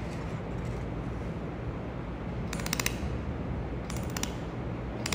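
Handheld laser welding gun firing into a metal plate in short bursts of rapid pulses, each burst a quick crackling rattle lasting under half a second, about two and a half seconds in, again about four seconds in, and once more at the very end, over a steady background hum.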